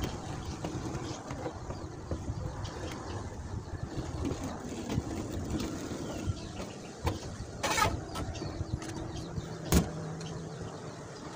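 Steady low rumble of background noise, broken near the end by a short scrape and then a single sharp knock about two seconds later: hand tools, a steel square ruler and a filler spreader, being handled against the tabletop while body filler is worked.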